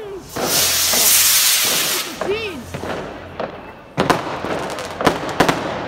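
New Year's Eve fireworks going off: a loud hiss lasting about a second and a half, then sharp bangs about four seconds in and twice more near the end.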